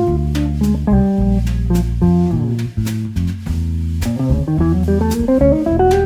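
Jazz band playing an instrumental passage with no singing: electric bass notes under regular cymbal strokes from the drum kit. In the last couple of seconds a melodic line climbs in a rising run of notes.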